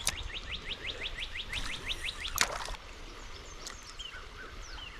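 A songbird singing a rapid trill of short rising notes, about nine a second for roughly two seconds, with other scattered bird chirps. A single sharp click sounds about two and a half seconds in.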